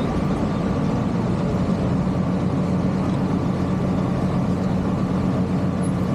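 A vehicle engine running steadily at an even level, with a constant low hum.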